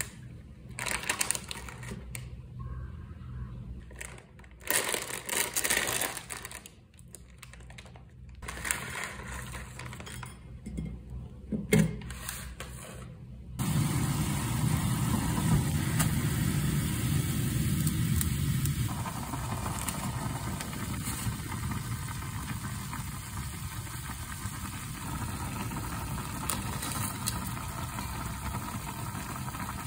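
A plastic ramyun packet crinkling in short bursts as it is handled. About halfway through, this gives way to the steady bubbling of water at a rolling boil in a pan, which carries on as the instant noodles cook.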